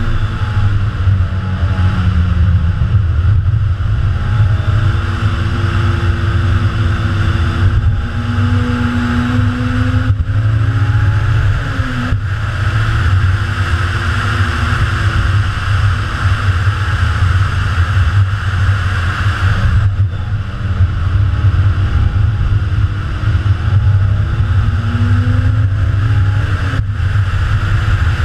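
Honda S2000's 2.0-litre F20C four-cylinder engine driven hard, revving up in pitch and dropping sharply at each gear change several times. Steady wind and road noise run under it.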